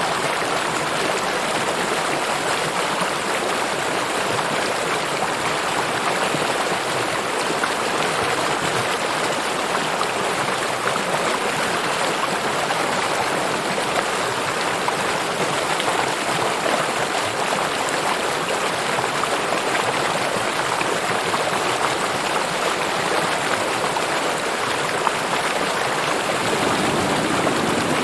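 A river flowing: a steady rush of running water.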